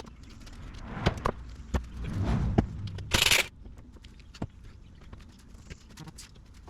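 Scattered knocks and clinks of metal tools and parts, with a short loud hiss about three seconds in.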